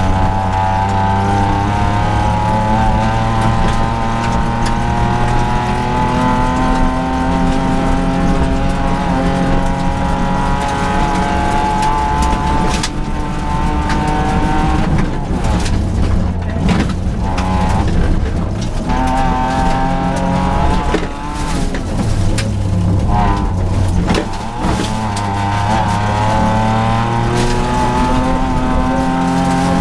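Rally car engine heard from inside the cabin, working hard on a gravel stage: its pitch climbs under acceleration and drops back at each gear change, over and over. In the middle stretch the engine note breaks up as the driver lifts off, with sharp knocks and clatter from the car.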